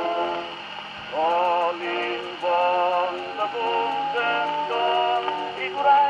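Background music: a sung or synthesised melody over a steady low drone, with a light ticking beat.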